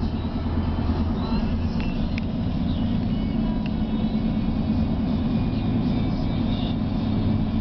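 Road noise inside a moving car's cabin: a steady low rumble of engine and tyres at highway speed.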